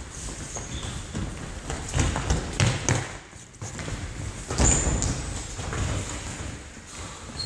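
Indoor football game on a wooden gym floor: sharp thuds of the ball being kicked and hitting surfaces, a cluster of them about two to three seconds in and a loud one a little before five seconds, with running footsteps and brief squeaks, echoing in a large hall.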